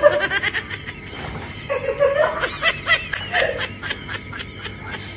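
A person laughing: rapid bursts of giggling laughter in two bouts, the second longer and louder.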